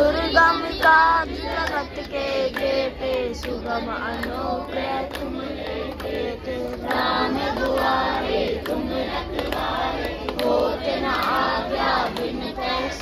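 A group of women's and children's voices singing together, several voices overlapping rather than in clean unison.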